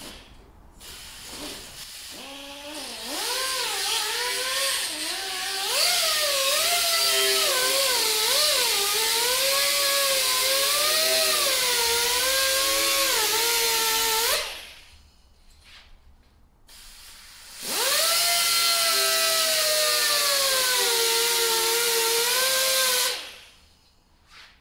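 Die grinder with a 2-inch Scotch-Brite wheel deburring the edge of a long aluminium stiffener: a whine over a hiss, its pitch wavering as the wheel is worked along the edge. It runs for about twelve seconds, stops, then runs again for about five seconds and stops near the end.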